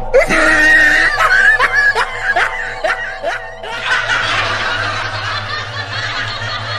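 High-pitched cackling laughter in a quick series of short gliding notes, about two a second, over a steady music drone. After about three and a half seconds the laughter gives way to a hissing noise.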